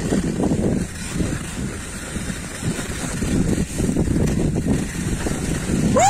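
Skis sliding over packed, tracked snow on a downhill run, with wind buffeting the microphone. The result is an uneven low noise that swells and dips with no steady tone.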